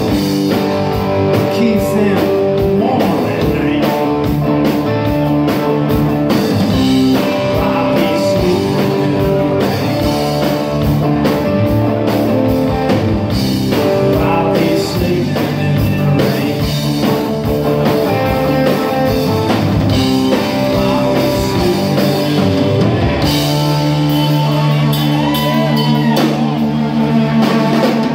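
Live rock band playing: electric guitars over a drum kit, loud and steady throughout.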